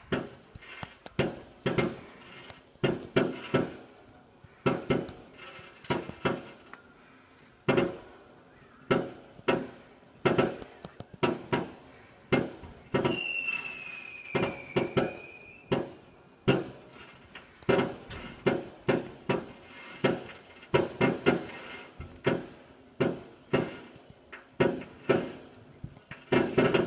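Fireworks going off: a long series of irregular bangs from aerial shells bursting, some coming in quick clusters. A high whistle, falling slightly in pitch, lasts about two seconds near the middle.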